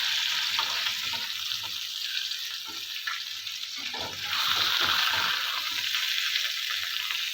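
Chicken thighs sizzling in hot oil in a frying pan as they are turned over, with short clicks and scrapes of a utensil against the pan. The sizzle swells about four seconds in.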